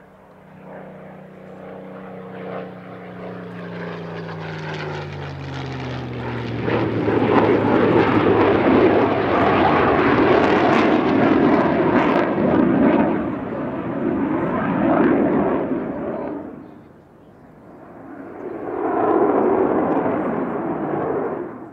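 Military display aircraft flying past low. A falling engine tone over the first few seconds swells into a loud jet roar lasting about ten seconds from the Eurofighter Typhoon. It dips briefly, then another loud pass comes near the end.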